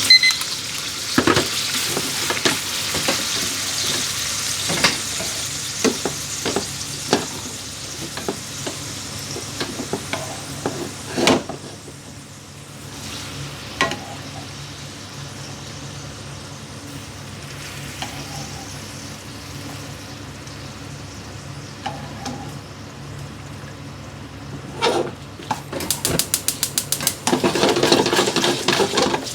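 Food sizzling in a frying pan while it is stirred, with sharp knocks of a utensil against the pan. The sizzle drops off about halfway through and picks up again near the end with quick stirring clicks.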